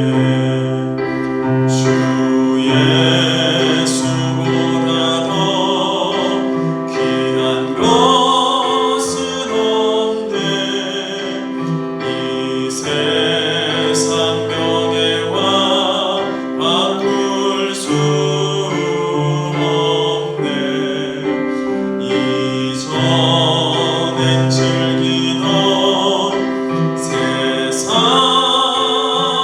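Church congregation singing a hymn together with keyboard accompaniment, in held notes and slow chord changes.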